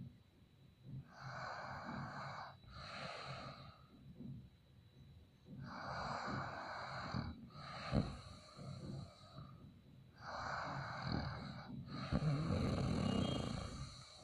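A man snoring in his sleep: three slow breath cycles, each heard as two noisy breaths in a row, about four to five seconds apart.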